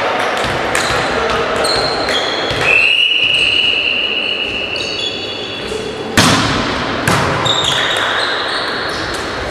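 A referee's whistle held steady for about three seconds, then the sharp smack of a volleyball serve and, about a second later, the thud of the pass, echoing in a large sports hall. Sneakers squeak on the court floor throughout.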